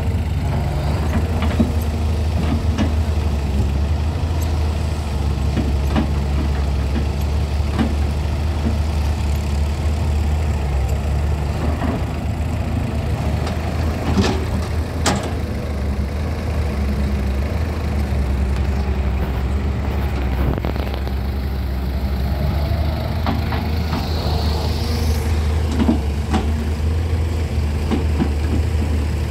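Hyundai 210 crawler excavator's diesel engine running steadily as the machine digs and swings, with scattered knocks and clunks from the bucket and soil and one sharp clank about halfway through.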